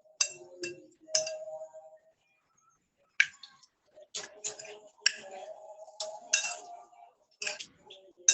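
About a dozen sharp clicks and clinks, irregularly spaced and bunched in little groups, over a faint low hum.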